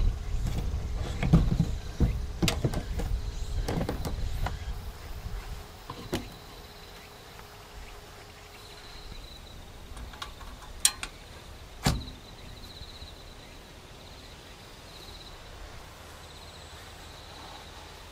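Metal clanks and knocks as a perforated steel fold-down table and its latch are handled, busiest in the first six seconds, then a few sharp metallic clicks about eleven to twelve seconds in.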